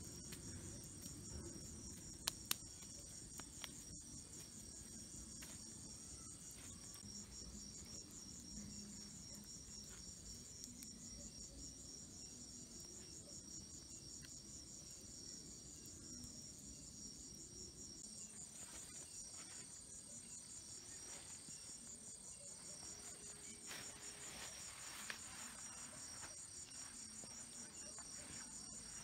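Night chorus of crickets: a steady, high-pitched trilling from many insects, a little louder in the second half. There are two sharp clicks about two seconds in.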